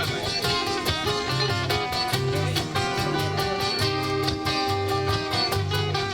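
Acoustic guitar strummed in a steady rhythm over repeating low bass notes: the instrumental introduction to a song, with no voice yet.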